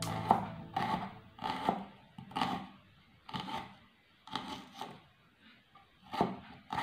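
Kitchen knife chopping a small red onion on a wooden cutting board: about a dozen sharp knife strokes against the board at an uneven pace, with short pauses in between.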